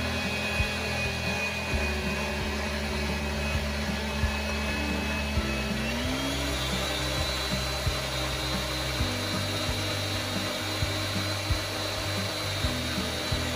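Electric stand mixer running, its beater mixing cake batter as milk is added. Its motor whine rises in pitch about six seconds in as the speed goes up.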